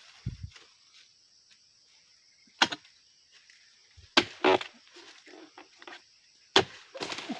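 Sharp chopping and cracking strikes as oil palm fronds and fruit-bunch stalks are cut with a harvesting blade, with crackling and rustling from the cut fronds. About four strikes come a couple of seconds apart, two of them close together near the middle.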